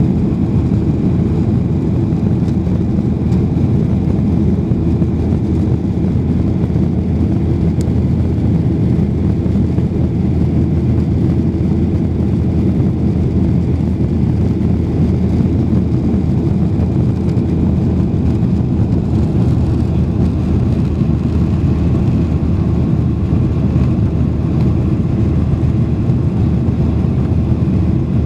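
Boeing 737-800 jet engines and airflow: a steady low rumble that holds one level throughout.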